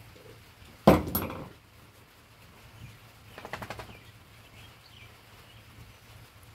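A sudden loud clatter about a second in that dies away within half a second, then a brief quick rattle a few seconds later.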